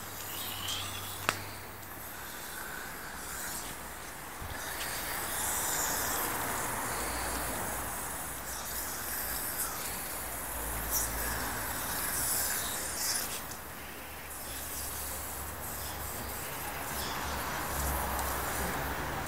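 Water jet from a garden hose nozzle lying on concrete, hissing and splashing as a small dog plays in the stream and drinks from it. There is one sharp click about a second in.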